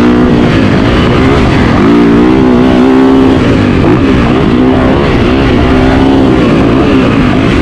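Dirt bike engine running at high revs, its pitch rising and falling again and again as the throttle is worked.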